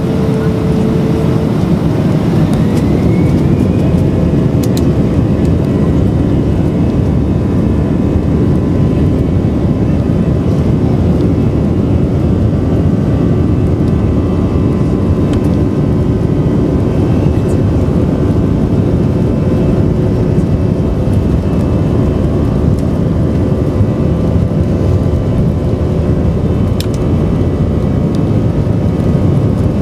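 Airbus A319 twin jet engines heard from inside the cabin: a whine rises in pitch from about 2 to 4 seconds in as the engines spool up, then steady loud engine noise with whining tones over it as the airliner rolls along the runway.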